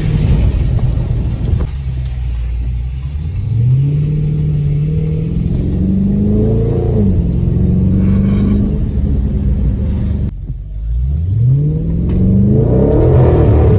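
Dodge Charger Scat Pack's 392 Hemi V8 under hard acceleration. The engine pitch climbs steadily from about four seconds in and breaks briefly near seven seconds. It drops off suddenly about ten seconds in, then climbs steeply again in a loud pull near the end.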